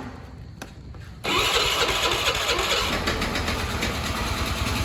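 A motorbike engine starts: a couple of sharp clicks, then about a second in the engine catches and keeps running.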